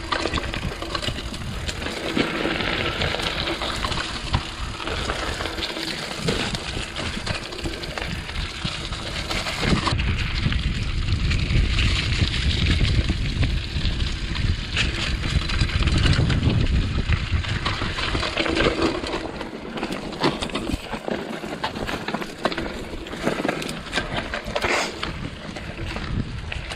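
Mountain bike riding through a rocky rock-garden trail section: tyres rolling and knocking over loose stones and the bike rattling, with many small clicks and knocks over a steady low rumble.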